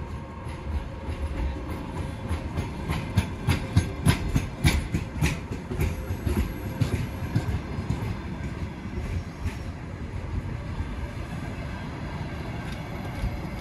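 Passenger carriages of a departing Russian Railways train rolling past, wheels clattering over rail joints in irregular clicks and knocks over a steady low rumble. The clatter is thickest in the middle seconds and thins toward the end.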